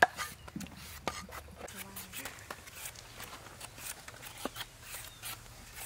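A cleaver chops once into a wooden chopping block, the last of a run of chops cutting up a fish. Faint scattered clicks and scrapes follow, with a peeler shaving the skin of a green mango.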